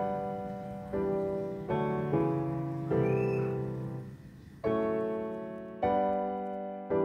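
Background music: slow piano chords, each struck and left to fade, about one a second.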